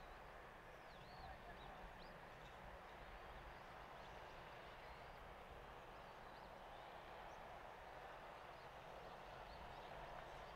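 Near silence: quiet rural background hiss with a few faint, short bird chirps now and then.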